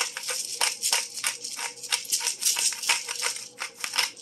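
Ground black pepper being shaken from a shaker into a pot: quick, irregular rattling shakes, several a second.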